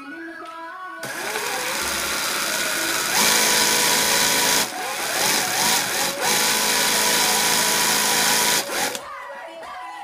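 Industrial sewing machine stitching free-motion embroidery at high speed. It starts about a second in, runs in a steady burst with a couple of brief dips, and stops near the end.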